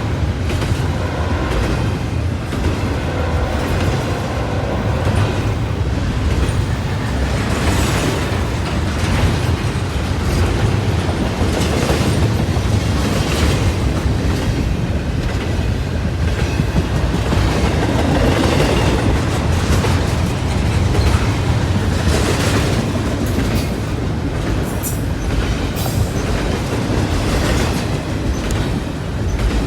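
Freight train cars rolling past, a steady heavy rumble with wheels clicking and clacking over the rail joints.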